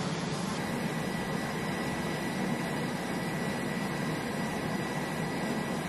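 Boeing MQ-25 Stingray's turbofan engine running at low power while the drone taxis, a steady rumble with a thin, high whine that comes in about half a second in.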